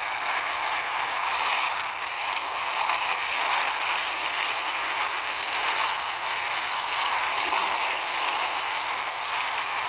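Plastic toy backhoe pushed along by hand, its wheels and gearing giving a steady rattling whir.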